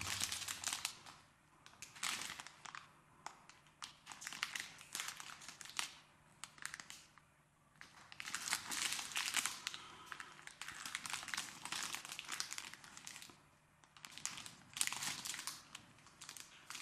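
Plastic packaging of a pack of firecrackers crinkling in gloved hands as it is handled, in several bursts of rustling with short quieter gaps between.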